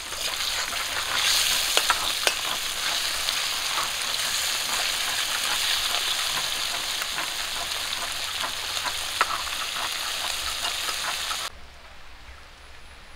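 Small tangra fish sizzling as they fry in hot oil in a wok, a steady hiss with occasional sharp pops. The sizzle cuts off suddenly near the end.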